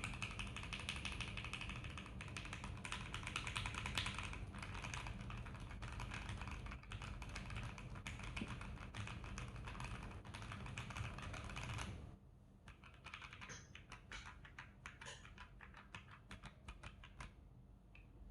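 Mechanical keyboard with Akko CS Starfish switches lubed with Krytox 205g0 and Akko ASA-profile keycaps, typed on quickly in a fast, dense stream of key clacks. About two-thirds of the way in the stream thins to slower, separate keystrokes, which stop shortly before the end.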